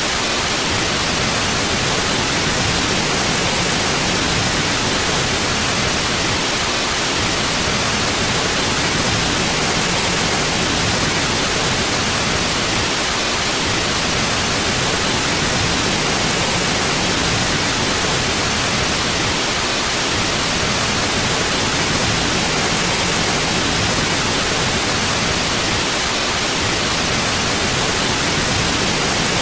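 Steady white noise: an even, unchanging hiss spread across the whole range up to a sharp cutoff, with no breaks or changes.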